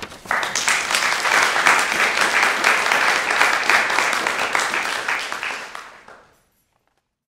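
Audience applauding after a poetry reading, the clapping fading out near the end.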